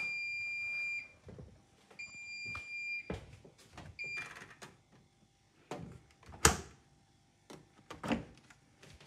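Bosch WAQ28470GB washing machine giving its end-of-programme beeps: a high beep about a second long, a second one about two seconds in, and a short beep around four seconds as the programme dial is turned. These are followed by clicks and knocks from handling the machine, the loudest a sharp knock about six and a half seconds in and another near eight seconds as the detergent drawer is handled.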